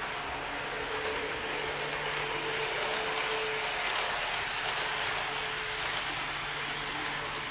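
HO-gauge model train, a KiHa 58 series diesel railcar set, running on the layout's track: a steady hiss of metal wheels rolling on rail with a faint motor hum, a little louder about halfway through.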